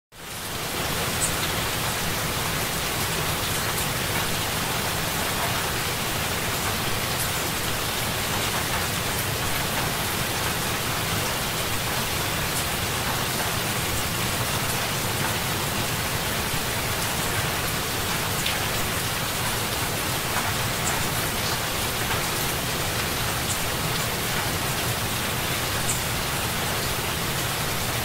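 Heavy rain falling steadily, an even hiss with the odd sharper drop tick.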